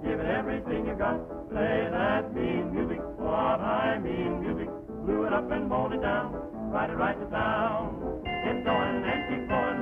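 A chorus of men's voices singing with heavy vibrato over orchestral accompaniment, on a thin early-1930s cartoon soundtrack. About eight seconds in the singing gives way to steady held instrumental notes.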